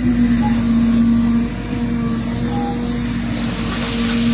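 An engine running at a steady speed, a continuous steady drone.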